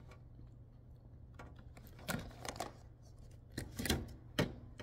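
Crisp crackles and clicks from the brittle shell of a dry sweet tamarind pod being cracked and peeled by hand, in two short spells, the second ending in a sharp click.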